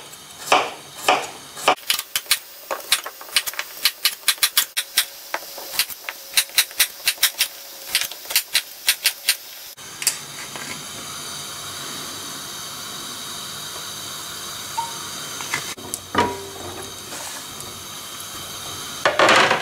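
Chef's knife dicing carrot on a cutting board: quick, even chops, about three a second, for the first half. Then a steady hiss takes over, with the clatter of carrot cubes being scraped off the board into a frying pan near the end.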